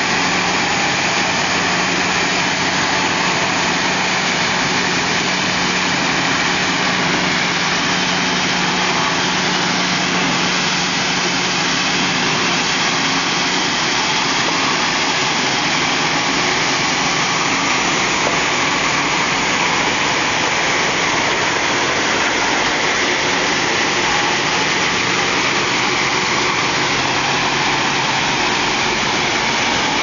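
Waste plastic film crushing and washing line running: steady machinery noise with a constant low hum.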